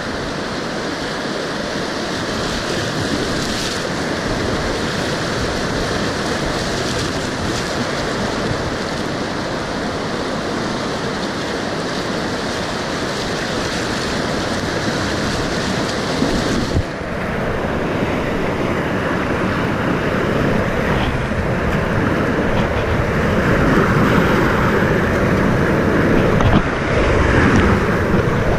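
River whitewater rapids rushing and splashing around a kayak, heard close to the water. A little over halfway through the high hiss dulls, and the rushing grows louder towards the end as the kayak runs rougher white water.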